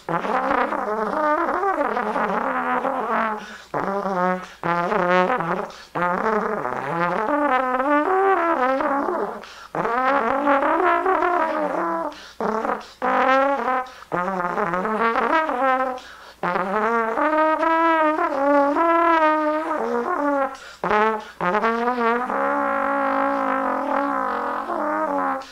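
Solo trombone playing free improvisation in microtonal pitches, with wavering vibrato and bent notes, in phrases broken by brief pauses.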